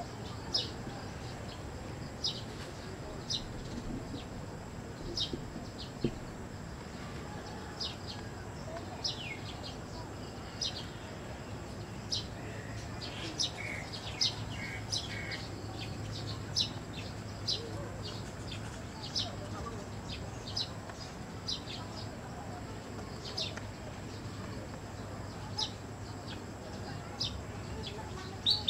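Birds chirping: short, high, downward-slurred chirps every second or two, over a thin steady high-pitched whine.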